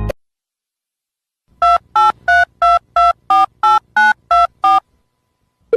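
Touch-tone telephone keypad being dialed: ten short two-tone beeps, about three a second, after a second and a half of silence.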